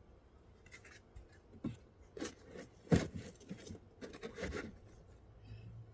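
Rustling, rubbing and scraping of things being handled and pushed into place in a car's trunk. A few short knocks come through, the loudest about three seconds in.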